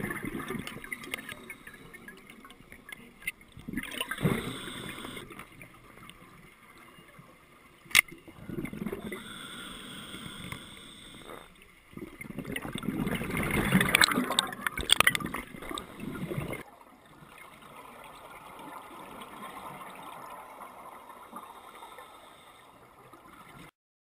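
Scuba divers' exhaled air bubbling and gurgling underwater, heard muffled through an underwater camera housing, in several surges with quieter stretches between. There is one sharp click about eight seconds in, and the sound cuts off just before the end.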